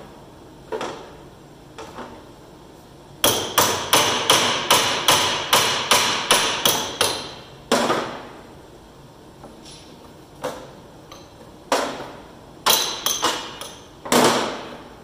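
Hand hammer striking the steel of a combine's operator platform while parts are knocked loose: a single blow, then a fast run of about a dozen ringing blows at roughly three a second, then several scattered single blows near the end.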